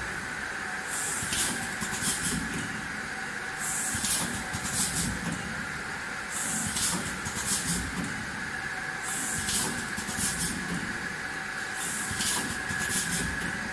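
Four-lane vertical sachet packing machine running: a steady hum, broken about every three seconds by a short hiss of air and a few quick clicks, one for each stroke of its pneumatic sealing and cutting jaws.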